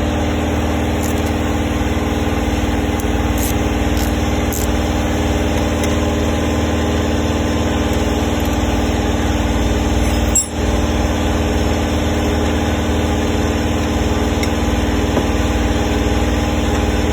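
A steady motor hum made up of several tones, running without change. A few faint clicks come in the first five seconds, and there is a brief dip with a click about ten seconds in.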